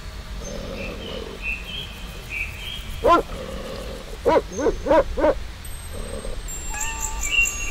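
Puppy barking in short high yaps: one bark about three seconds in, then a quick run of four.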